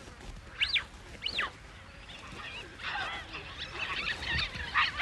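Young baboons squealing and screeching as they scuffle: two rising-and-falling squeals about half a second apart near the start, then a burst of overlapping shrill screeches from about three seconds in.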